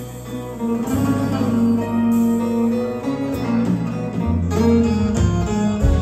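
Live band with keyboard and electric guitar playing an instrumental interlude of a Turkish folk song (türkü), with no singing: held notes over a bass line.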